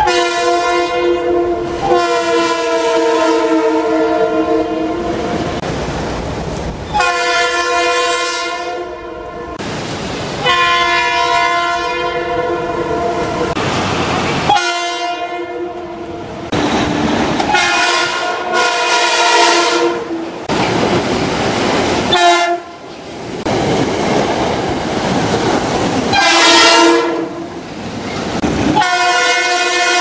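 Metro-North commuter trains sounding their air horns in a string of loud blasts, some held for several seconds and some short, each a steady chord of several notes.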